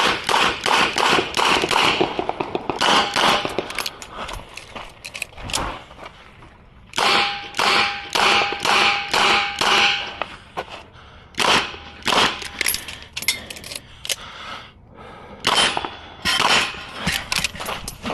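Smith & Wesson 929 9 mm revolver fired in rapid strings of shots, in several quick bursts broken by short pauses.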